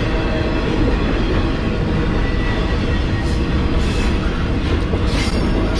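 Double-stack container cars of a CSX intermodal freight train rolling past, a steady heavy rumble of wheels on rail.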